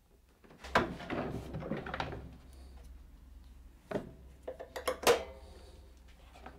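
A stainless-steel drum shop vacuum set down on a wooden cart with a loud clunk and a second of clattering, then an elastic bungee cord stretched around the metal drum, with a few clicks and a sharp snap about five seconds in.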